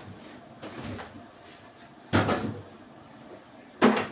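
Freezer being opened and shut as containers go in: a few knocks and thuds, a louder one about two seconds in and the sharpest just before the end.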